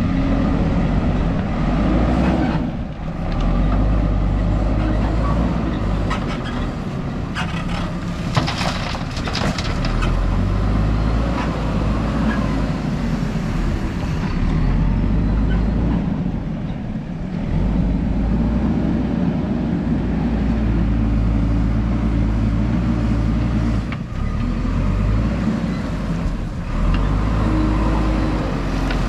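JCB 3DX backhoe loader's four-cylinder diesel engine running, repeatedly revving up and settling as the machine works while loading gravel. Seven to ten seconds in there is a short spell of rattling and knocking.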